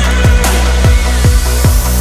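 Electronic background music with a heavy, steady bass and punchy kick-drum hits about every half second, with a hissing swell building in the highs.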